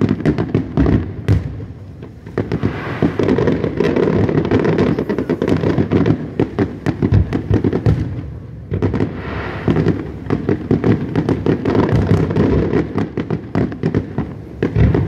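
Aerial firework shells bursting in quick succession, a dense run of sharp bangs and pops, with a short lull about eight seconds in before the bangs resume.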